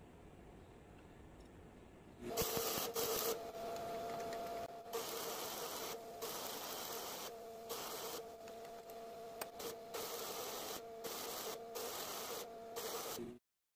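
Stick arc welding on steel: the arc crackles and hisses steadily from about two seconds in over a low steady hum, breaking off briefly several times as the arc is stopped and restruck, and cutting off abruptly near the end.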